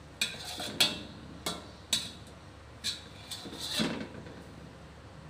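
Spatula scraping and knocking against a nearly empty wok, scooping out the last scraps of the cooked dish: about six sharp scrapes, roughly one a second.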